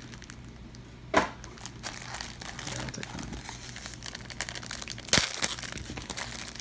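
Plastic and cardboard packaging of a trading-card structure deck being handled and pulled open: continuous crinkling and crackling, with two louder sharp crackles about a second in and about five seconds in.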